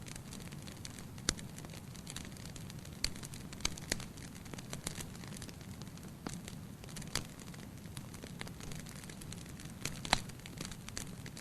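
Campfire crackling: irregular sharp pops and snaps over a steady low rumble of the flames, with the loudest pops about a second in and near the end.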